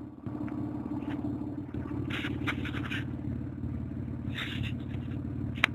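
Vauxhall Vectra engine idling steadily through an aftermarket Remus exhaust, with a low, even pulse. Two brief scraping noises come over it, and a sharp click near the end.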